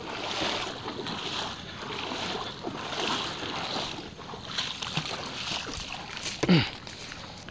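Seawater washing and splashing on a shore, rising and falling every second or so, with wind on the microphone. A short, low, voice-like sound falling in pitch comes about six and a half seconds in.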